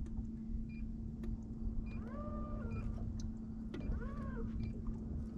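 Bow-mounted electric trolling motor running with a steady hum, under a low rumble of wind on the microphone. Two short pitched calls, each rising then falling, come about two seconds in and again about four seconds in.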